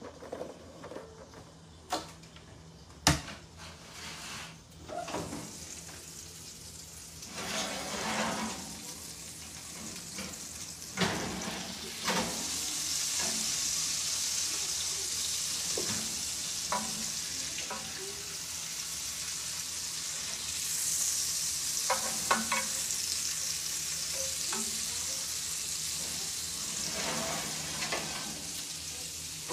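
Steak sizzling in its pan in the oven: a steady sizzle from about twelve seconds in, once the oven is open. Before that, a few sharp clanks of the oven door and rack.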